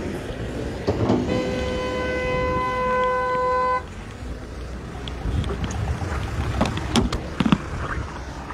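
A vehicle horn sounds one long steady note for about two and a half seconds, then cuts off suddenly. A few sharp knocks follow near the end, over a low rumble.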